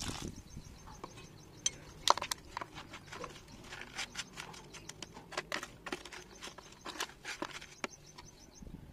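Metal spoon stirring and scraping through wet lumps of clay in a plastic tray, making irregular clicks and short scrapes as chunks break apart. The pour of water onto the clay fades out just as it begins.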